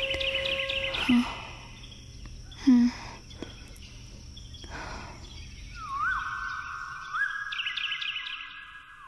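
Birds chirping in quick short trills at the start and again near the end, with a steady held whistle-like tone through the second half. Two loud dull knocks fall in the first three seconds, over a low rumble.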